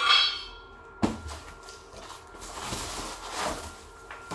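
A cardboard shipping box being handled: a brief high-pitched squeak at the start, a sharp knock about a second in, then the cardboard flaps scraping and rustling as they are lifted.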